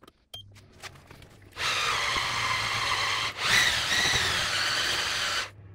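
Electric hand blender with a whisk attachment running in thick cake batter for about four seconds, with a brief dip partway through. Underneath, an oven switched on to preheat gives a low steady hum from near the start.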